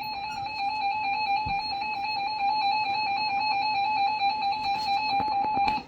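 A weather alert radio sounding its warning alarm: one electronic tone with a fast slight warble, held for nearly six seconds and then cut off. It signals an incoming tornado warning broadcast.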